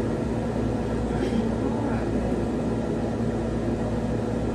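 Steady hum of the laser tattoo-removal equipment running in a small treatment room, with a faint airy rush over it.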